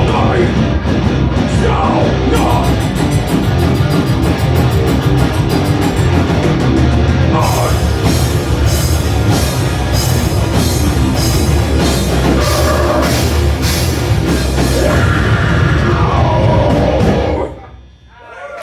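Rock band playing live, with electric guitars and a drum kit keeping up a steady cymbal beat. The song stops suddenly about a second before the end.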